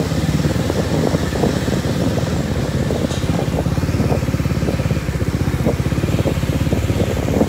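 Motorcycle engine running steadily on the move, with a fast, even chug.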